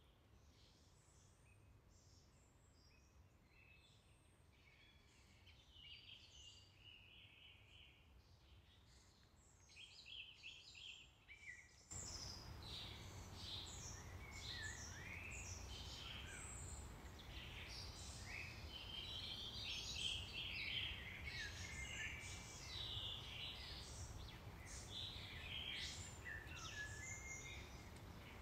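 Faint birdsong: many small birds chirping in quick, overlapping calls over a low background noise. About twelve seconds in, the whole sound steps up suddenly in level and the calls become denser and louder.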